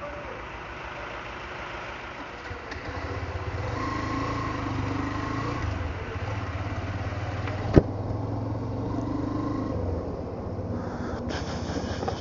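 Vehicle engine running steadily, growing louder about three seconds in, with one sharp click near eight seconds.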